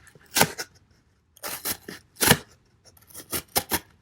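A D2 steel folding-knife blade slicing through heavy corrugated cardboard in a series of short, scratchy cutting strokes with quiet gaps between them.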